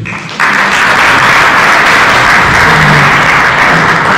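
Audience applauding at the end of a speech. The clapping starts about half a second in, holds steady and begins to fade near the end.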